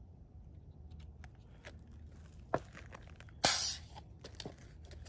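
PepperBall TCP launcher being handled while its velocity is set back to the factory setting: small clicks, one sharp click, then a loud hiss of gas lasting about half a second, followed by a few more light clicks.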